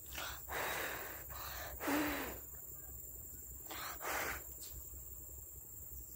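A person's breathing close to the microphone: a run of loud breaths in the first two seconds, the loudest ending in a short low hum, then one more breath about four seconds in.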